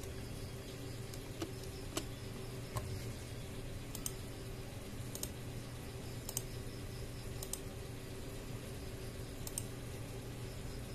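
Irregular clicks of a computer mouse and keyboard being worked, some as quick double clicks, over a steady low hum.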